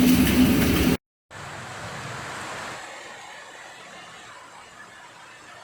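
A loud, dense noise with a steady low hum cuts off abruptly about a second in. After a brief silence, a quieter, even hiss of rain follows and fades slightly.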